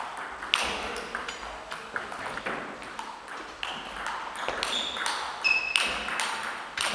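Table tennis rally: the ball clicking sharply off the bats and the table top several times a second, some hits with a short high ping.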